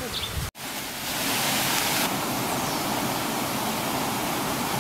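River water spilling over a small concrete weir into a pool, a steady rushing that begins about half a second in.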